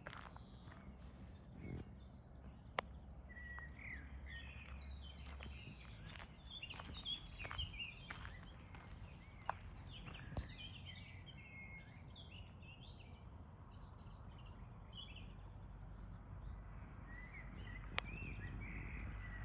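Small birds chirping and calling faintly over steady low outdoor background noise, with a few sharp clicks.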